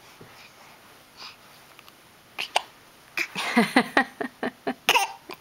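A baby hiccuping and making short voiced sounds: quiet at first, then a couple of sharp hiccups about halfway through, followed by a rapid string of short bursts near the end.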